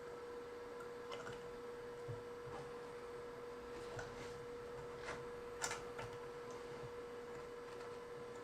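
Faint clicks and taps of tools and parts being handled at an electronics repair bench, about half a dozen, the sharpest a little past halfway, over a steady electrical hum at one pitch.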